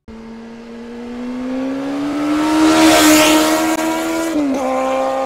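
High-revving racing engine sound effect, starting suddenly. Its pitch climbs and its loudness swells to a peak about three seconds in, with a rushing hiss on top. A quick dip in pitch comes near the end, and then it runs on at a steady note.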